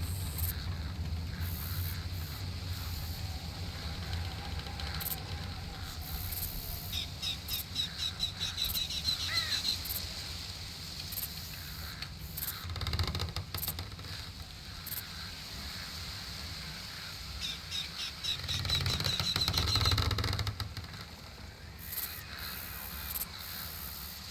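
Outdoor nature ambience: a songbird sings a rapid trill of quickly repeated notes twice, about seven seconds in and again near the end, over a low steady rumble.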